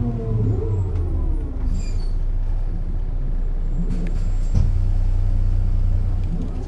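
Diesel engine of a 1996 Setra S 315 UL city bus running under way, its pitch rising just after the start and then holding steady, with a brief change in engine note about two-thirds through.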